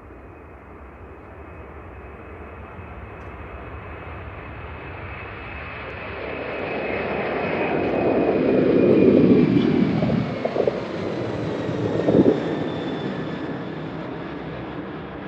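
Boeing 747-400's four jet engines at takeoff power, the noise swelling as the aircraft approaches to a peak about 9 seconds in and then easing as it passes. A high fan whine slides down in pitch as it goes by.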